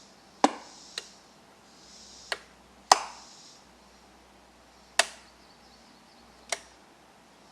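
Six sharp clicks or taps of hard objects, unevenly spaced, with a faint hiss between some of them.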